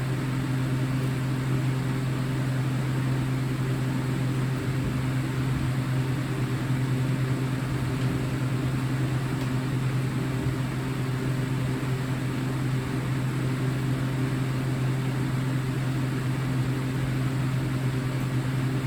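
Steady low mechanical hum with a hiss over it, from a running machine.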